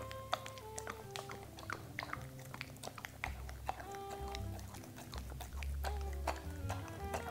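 Dog chewing and smacking its lips, with scattered crisp clicks from the bites, over background music with sustained notes and a low bass.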